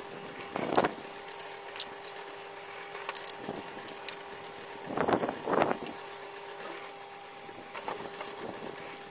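Benchtop drill press motor running with a steady hum while a small bit drills centre pilot holes. The bit cuts in briefly about a second in, again around five seconds in, and once more near the end.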